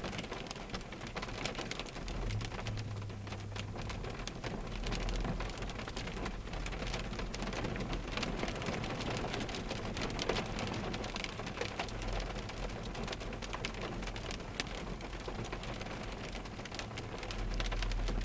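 Rain pattering on a car's windshield and roof, heard from inside the car, with many sharp drop taps over a steady wash and a low rumble underneath at times.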